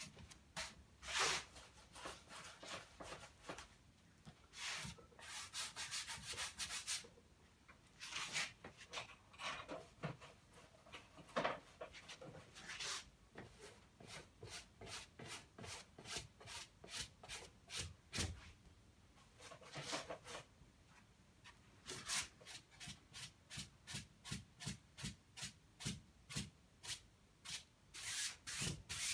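Bristle paintbrush scrubbing oil paint onto unstretched canvas in runs of short back-and-forth strokes, with brief pauses between runs; the strokes come about two a second towards the end.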